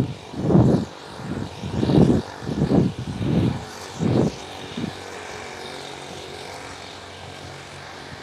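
Wind buffeting a phone's microphone in a run of irregular low gusts for about five seconds, then settling into a steady low rumble.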